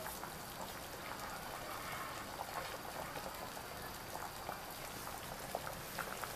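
Large aluminium pot of feijoada, black beans with pork cuts, boiling uncovered: a steady bubbling with scattered small pops.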